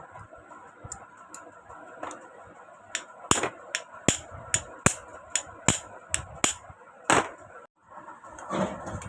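A rust-jammed bar part of a sewing machine being knocked free with light, sharp metal taps, about two or three a second.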